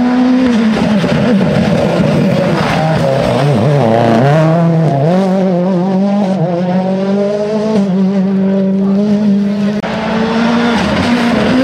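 Rally car engine running at high revs. The pitch wavers up and down with throttle and gear changes through the middle, then holds a steady high note.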